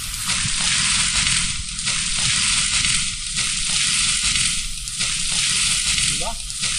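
A high, continuous insect drone, like cicadas, swelling and easing a little over once a second over a low rumble. A short rising tone comes near the end.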